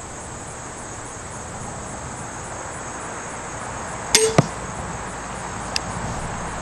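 An 80 lb pistol crossbow being fired. About four seconds in, the string releases with a sharp snap and a brief twang, followed a fraction of a second later by a second crack.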